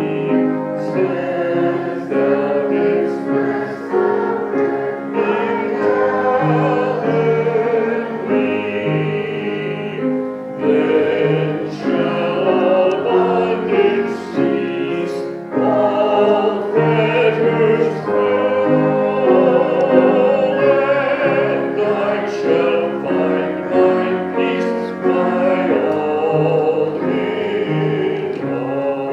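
A choir singing a hymn with instrumental accompaniment, in sustained, changing chords.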